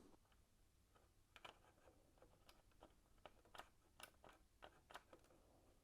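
Near silence with about a dozen faint, short clicks and taps from plastic parts being handled as the on-off switch is fitted into the tumble dryer's plastic control panel.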